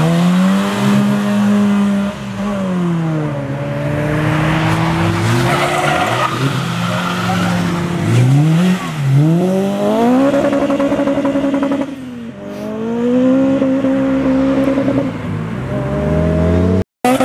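Modified cars' engines revving hard as they pull away one after another, pitch climbing through each gear and dropping at each shift, several times over.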